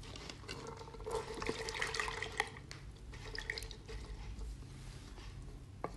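About a glass of water being poured into thick, bubbling masala gravy in a pan: faint pouring with small splashing ticks.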